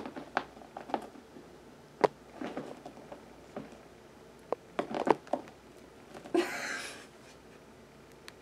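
Cat moving about on the back of a fabric chair: quiet scattered taps and rustles, with one short breathy burst about six seconds in.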